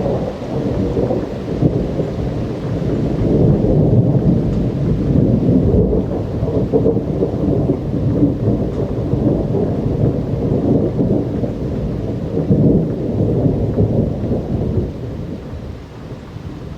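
Long rolling rumble of thunder over steady rain. It swells a few seconds in and dies away near the end.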